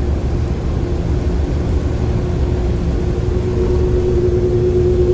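Snowmobile trail groomer's engine running steadily, a low rumble with a steady droning tone.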